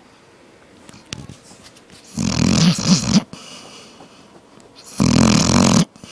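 A dog snoring loudly: two long snores about three seconds apart, each lasting about a second.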